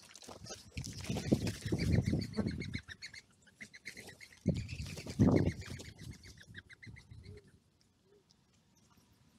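Birds calling at a feeding spot: a run of short harsh notes repeated about four or five times a second, over two loud low rushing sounds close to the microphone, one about a second in lasting a couple of seconds and a shorter one around five seconds in.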